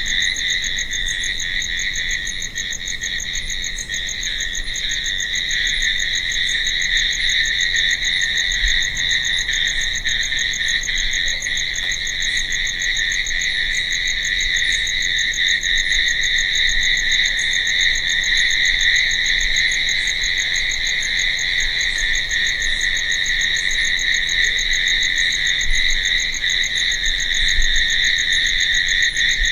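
Crickets chirping in a dense, steady chorus that blends into one continuous high trill.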